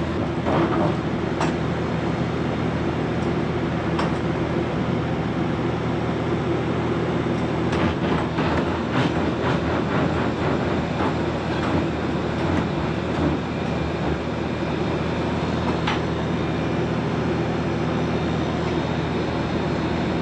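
Commercial prep table's refrigeration condensing unit running steadily (hermetic compressor and condenser fan), a constant mechanical hum with a few light clicks, as the system runs on a fresh refrigerant charge.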